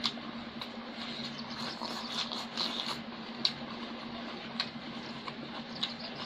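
Eating sounds: chewing and mouth smacking while mixing rice by hand on a metal plate, with a few short sharp clicks and a low steady hum underneath.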